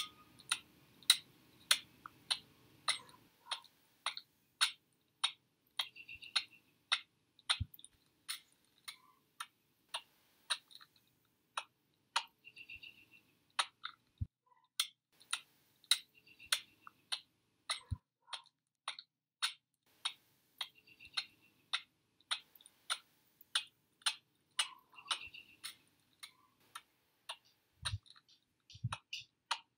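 Sharp, regular clicks, about one and a half to two a second, with faint higher chirps now and then between them.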